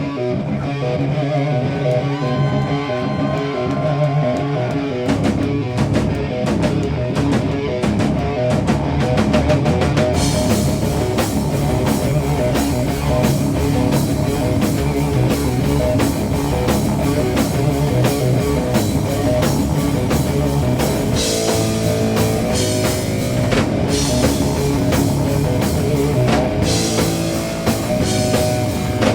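Doom metal band playing an instrumental passage: distorted electric guitar riffing over bass, with the drum kit coming in about five seconds in and cymbals crashing from about ten seconds in.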